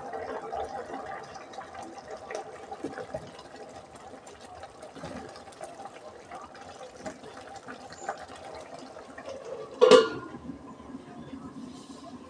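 A spatula stirring and scraping cooked biryani rice in a pot, with small scrapes and clicks. Near the end a stainless steel lid is set back on the pot with a sharp, ringing clang.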